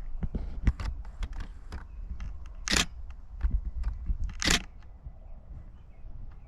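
Canon Rebel T7i DSLR shutter firing repeatedly, a string of sharp clicks with two louder, longer bursts about three and four and a half seconds in.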